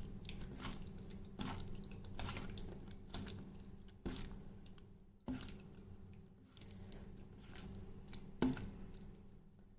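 Raw chicken pieces being mixed with a wet marinade of spices, oil and lemon juice in a bowl. It makes irregular wet squelching strokes, a few with a sharper knock or scrape.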